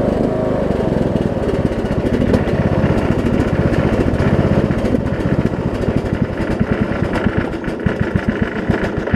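Troy-Bilt Bronco riding mower's 18.5 hp Briggs & Stratton engine running, then throttled down. From about six seconds in the sound breaks into separate, slowing firing beats as the engine settles to a very low idle.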